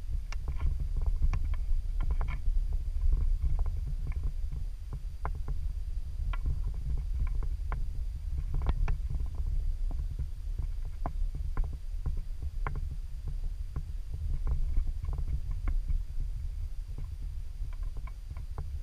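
Steady low rumble on the microphone, with many small scattered crackles and ticks through it.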